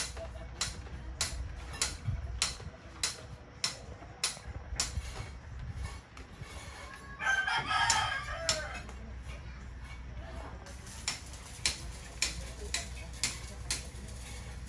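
A rooster crows once, about seven seconds in, the loudest sound here. Around it run sharp hammer blows, about three a second, which pause for several seconds around the crow and then start again.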